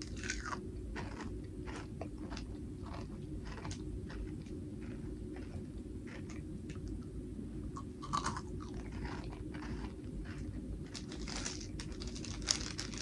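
Crunching and chewing of a brittle coconut-pandan crystal candy: many small crisp crunches, with a louder crunch about eight seconds in. Near the end a thin plastic wrapper crinkles.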